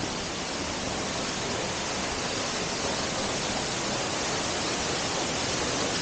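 Waterfall and the stream below it rushing: a steady, even rush of water with no breaks, growing slightly louder.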